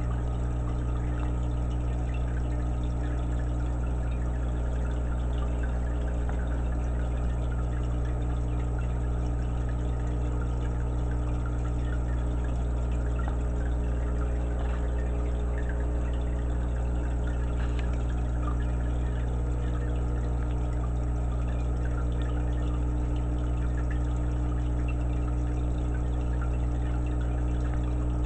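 Aquarium air stone bubbling steadily, a dense stream of air bubbles fizzing and popping at the water, over a steady low mechanical hum from the tank's equipment.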